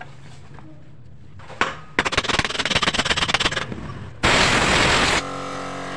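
A few single metal knocks, then about two seconds in a fast run of sharp taps lasting under two seconds: a new ball bearing being driven into a Yamaha Mio's final-drive gear case with a metal drift. This is followed by a loud hiss for about a second and then a steady hum with several held tones.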